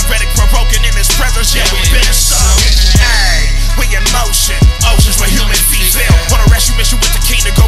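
Christian hip hop track with a heavy bass and drum beat and a rapper's vocal over it, with a short falling sweep about three seconds in.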